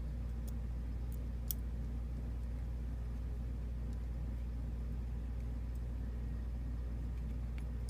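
Steady low background hum with a few faint, light clicks of small metal lock parts being handled during padlock disassembly, mostly in the first couple of seconds and once near the end.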